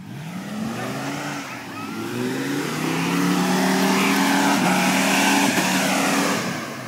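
Lifted Dodge Ram pickup's engine revving up and held at high revs as the truck churns through a mud pond; the revs fall off near the end.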